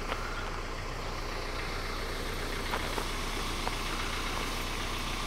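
Engine idling steadily with a low hum, with a few faint clicks over it.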